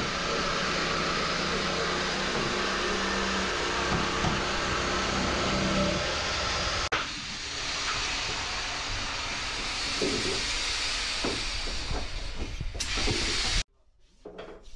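Shop vacuum running with a steady, loud hiss. It breaks off sharply about seven seconds in, carries on, and cuts off suddenly near the end.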